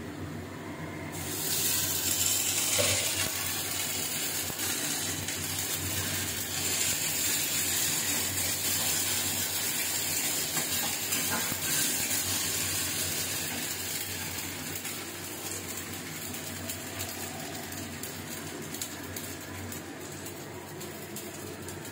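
Ginger-garlic paste hitting hot oil and fried onions in a wok, sizzling loudly from about a second in, with a spatula stirring and scraping now and then. The sizzle slowly dies down over the last several seconds.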